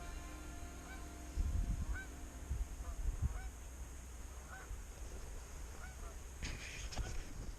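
Geese honking, short calls repeating about once a second, with low rumbles on the microphone in the first few seconds.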